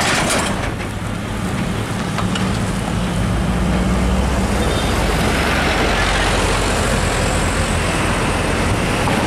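Diesel engine of a container semi-trailer truck running as it drives off, its low drone strongest in the first half, amid road traffic noise.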